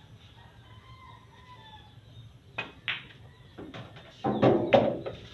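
A pool shot: two sharp clicks of the cue and billiard balls striking, a little over halfway through. Then a loud animal call near the end, the loudest sound here.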